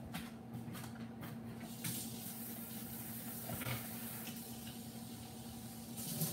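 A few light clicks, then tap water running into a kitchen sink out of view, starting about two seconds in and growing louder near the end.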